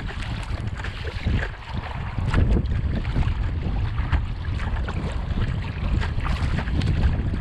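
Strong wind buffeting the microphone in a deep steady rumble, over choppy water splashing around the kayak in short irregular slaps.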